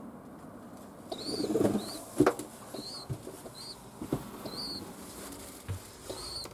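Birds in a fantail dove aviary: a string of short high peeps, about eight of them, with a brief burst of wing flapping about a second in and a few light knocks.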